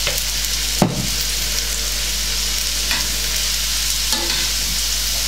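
Onion and grated carrot sizzling in oil in a frying pan, with a spoon stirring and knocking against the pan a few times, loudest about a second in.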